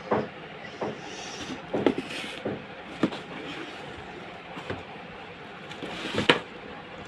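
Shoes and packaging being handled: irregular knocks and bumps, with a brief rustle a second or two in and the loudest knock near the end.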